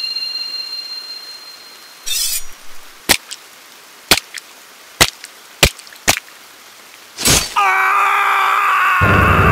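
Dubbed sound effects. A high steady ringing tone fades out over the first two seconds. Then comes a burst of hiss and a run of about eight sharp cracking hits over some four seconds, over a faint rain hiss. Near the end a loud, long scream starts, with music coming in under it.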